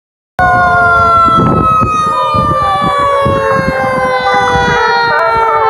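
Fire truck siren sounding loudly, its pitch falling slowly and steadily throughout, starting about half a second in, over a low rumble of truck engines.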